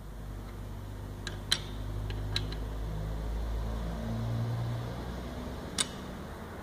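A few sharp metallic clicks of a torque wrench on a connecting-rod cap bolt, tightening the rod bolts to 2.5 kgf·m: two quick pairs in the first few seconds and one more near the end. A steady low hum runs under them.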